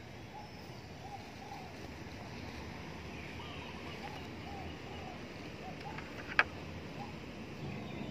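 Outdoor ambience: a steady low background hum with faint, short chirping notes repeating throughout, and one sharp click about six and a half seconds in.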